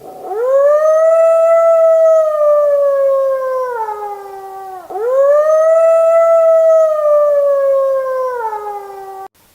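Wolf howling: two long howls, each rising quickly in pitch at the start, holding, then sliding slowly down and dropping at the end, the second beginning about five seconds in.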